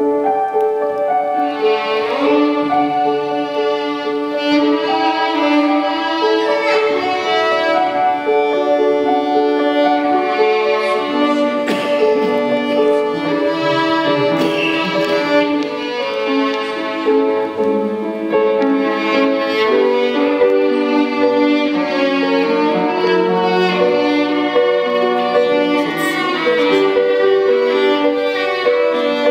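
Two violins playing a duet, with overlapping held, bowed notes.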